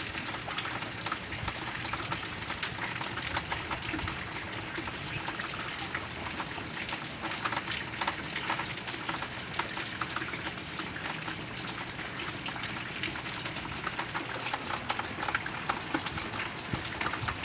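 Heavy rain pouring down and splashing into puddles: a steady dense hiss full of small drop ticks.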